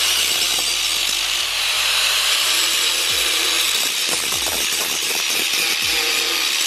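Angle grinder grinding down weld beads and spot-weld fills on a truck's steel rocker panel: a steady, high-pitched grinding of the disc against the metal.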